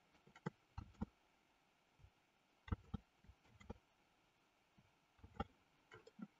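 Faint computer mouse clicks, about ten in small irregular groups, over near silence.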